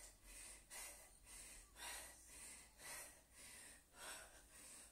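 A woman breathing hard and quickly, a short sharp breath about twice a second, in time with repeated dumbbell punches during a high-intensity interval.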